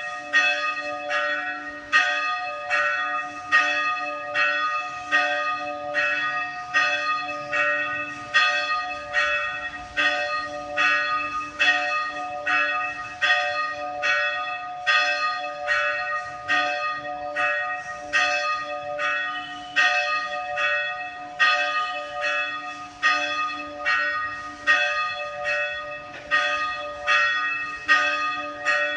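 Church bells pealing to call the faithful to Mass: several bells struck in a quick, steady stream, with a stronger stroke about every two seconds, over the held hum of the bells.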